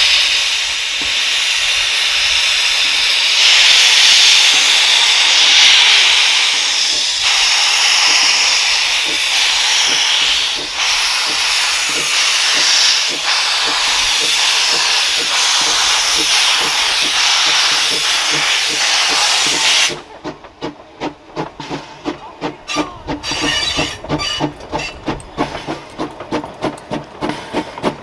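Baldwin-built two-foot gauge steam locomotive starting its train: a loud, steady hiss of steam blowing from the open cylinder drain cocks. About twenty seconds in the hiss cuts off as the cocks are closed, and the exhaust chuffs take over in a quick, even beat as it picks up speed.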